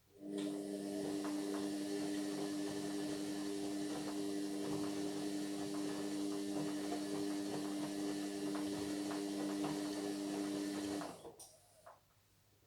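Indesit MyTime washing machine running during a Whites 40 wash: a steady hum with several held tones and a hiss, with light clicks through it. It starts abruptly and cuts off about eleven seconds later.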